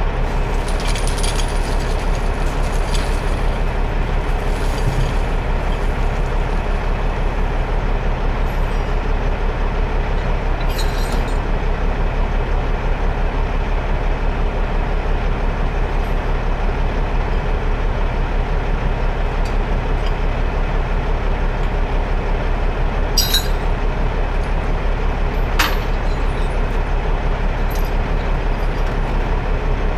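Heavy rotator wrecker's diesel engine running steadily, with a few short clinks about a third of the way in and again near the end.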